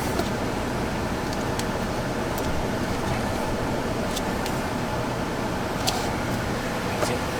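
Steady hum of a running vehicle inside its cab, with about six light clicks and taps from handling a dash-mounted phone holder.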